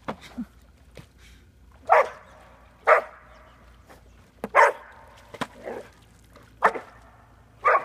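A dog barking in short single barks, about five loud ones spaced a second or two apart, with a few fainter yips about a second in.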